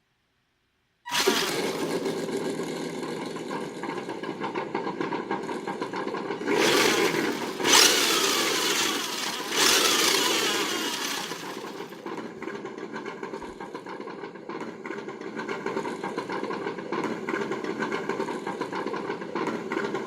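Simulated engine sound from a G.T.Power sound unit: an engine cranks and catches about a second in, revs up three times, then settles into a steady idle.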